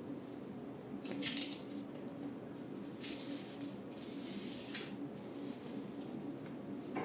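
Rustling handling noises, the loudest about a second in and softer ones a few seconds later, over a steady low hum.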